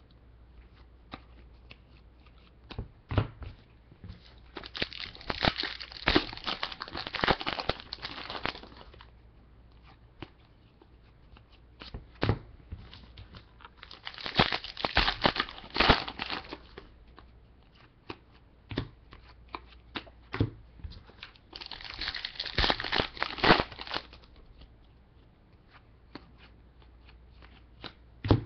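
Foil wrappers of 2007 Contenders football card packs crinkling and tearing open in three bursts, about five, fifteen and twenty-three seconds in, with light ticks of cards being handled in between.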